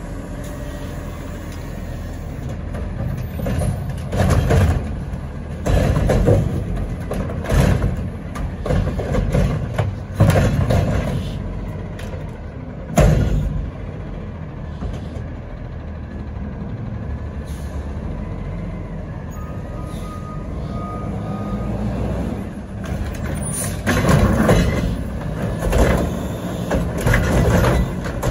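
Front-loader garbage truck with a cart-grabbing can on its forks: the engine running and working the hydraulics, with a series of loud bangs and thuds from the arms and steel can as it lowers the can and comes up to grab the next cart. A short steady beep sounds once, about two-thirds of the way through.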